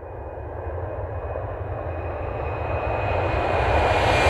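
Airplane engine noise, a rumble and rush that grows steadily louder, with a faint high whine held over it.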